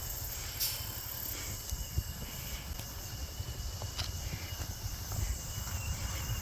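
Steady high insect drone, with a low wind-like rumble and a few faint knocks.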